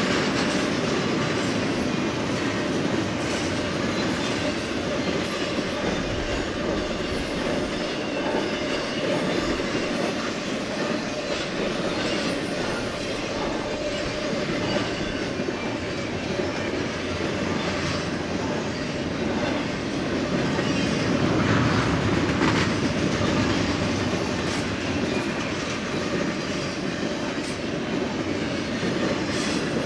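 BNSF intermodal freight train of double-stack container and trailer cars passing steadily, its steel wheels running on the rails. The sound swells briefly about twenty seconds in as a locomotive placed mid-train goes by.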